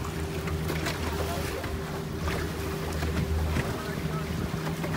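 Boat engine running slowly with a steady low hum, with wind buffeting the microphone.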